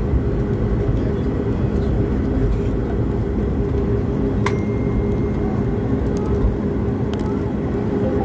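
Steady jet engine and cabin drone inside an airliner moving on the ground, with a low hum of several held tones. A sharp click comes about halfway through, followed by a short faint high tone.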